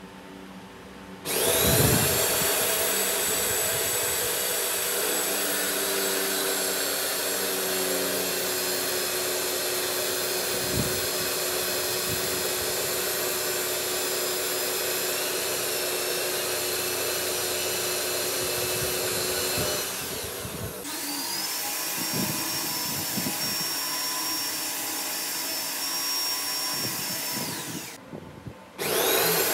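Electric milling spindle on a lathe, spinning a four-flute end mill that cuts flutes into a steel shaft. It starts about a second in with a rising whine and then runs steadily. It changes pitch briefly about two-thirds of the way through, stops near the end and starts up again.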